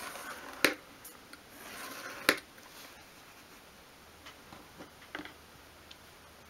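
Tip of a small flat-blade screwdriver scraping along a steel rule, scoring a groove into thin craft-wood sheet: two strokes, each ending in a sharp click, then a few faint taps.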